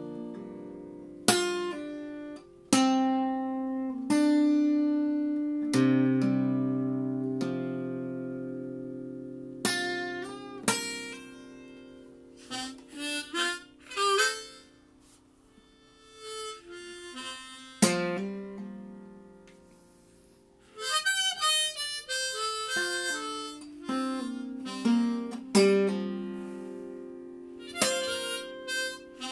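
Harmonica held in a neck rack, played in quick, wavering phrases between strummed guitar chords that ring out and fade.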